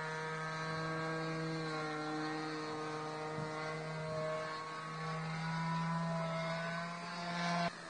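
Radio-controlled model airplane's motor running in flight, a steady pitched note whose higher tones drift a little. It grows louder near the end, then cuts off suddenly.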